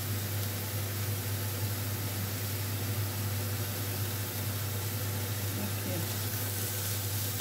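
Kitchen range hood extractor fan running, a steady low hum under a constant rush of air.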